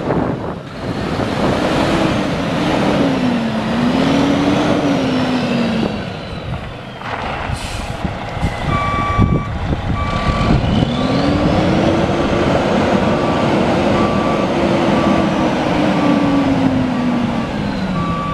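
Detroit Diesel Series 60 12.7-litre inline-six turbo diesel of a Freightliner FLD120 semi truck running, its note rising and falling twice. About seven seconds in there is a brief hiss, and from about nine seconds a backup alarm beeps steadily over the engine, a little faster than once a second.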